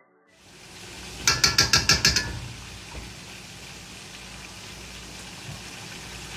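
A quick rattle of about eight sharp clicks, about a second in, like kitchenware or a handled phone, over a steady hiss of kitchen room noise.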